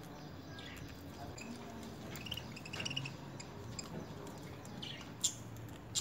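Budgerigars giving a few short, soft chirps and chattering calls, with a single sharp click about five seconds in.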